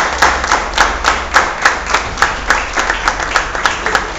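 A group of people clapping together in a steady rhythm, about three claps a second.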